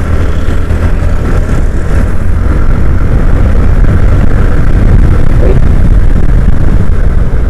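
Steady, loud wind and road noise from riding a TVS Ntorq 125 scooter at speed, heavy in the low rumble, with no clear break or change.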